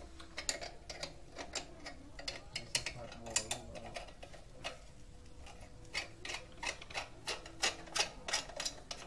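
Irregular light metallic clicks and ticks, two to four a second and denser in the second half, from the rear chain, sprocket and brake area of a motorcycle as it is handled.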